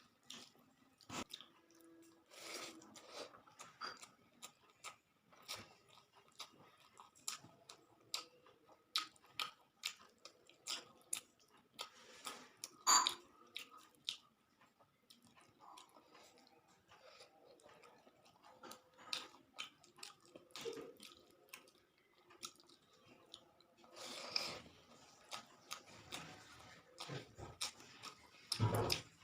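Close-up mouth sounds of someone eating rice with small parshe fish in curry: wet chewing, lip smacks and small clicks at irregular intervals, with one sharper click about halfway through.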